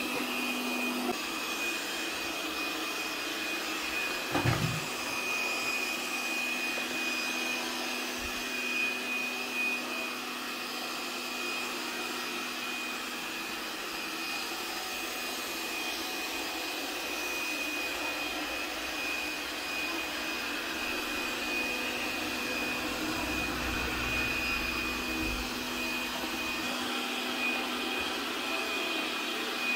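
Lubluelu SL60D robot vacuum running across a hard floor: a steady whir of its suction fan with a constant high whine. A single knock about four seconds in.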